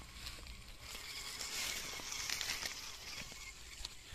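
Homemade DC-motor toy tractor rolling across grass and dry leaves: a faint crackling and rustling of its wheels over the leaf litter, swelling about halfway through.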